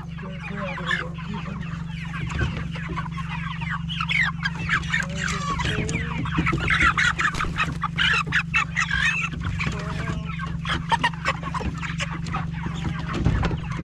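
A crowded flock of white meat chickens squawking and clucking in alarm as they are grabbed by hand and loaded into crates for slaughter, with many sharp knocks and wing flaps among the calls.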